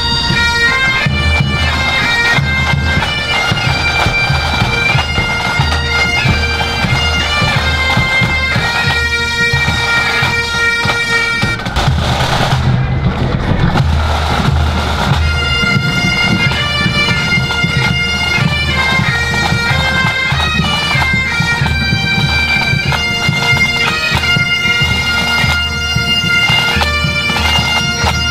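Pipe band playing a march on Great Highland bagpipes, the tune stepping from note to note over a steady drone, with the band's drums beating beneath.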